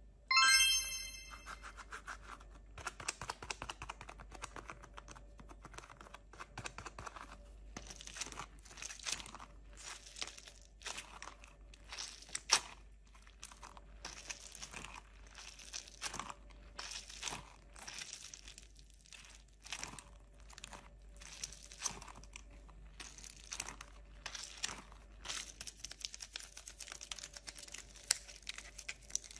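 A short ringing tone, then irregular crackling and crinkling with many small sharp clicks.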